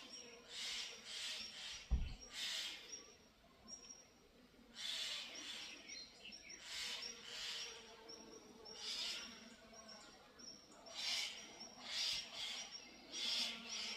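Outdoor birds calling, with repeated short, harsh call bursts coming in clusters every second or two. There is one brief low thump about two seconds in.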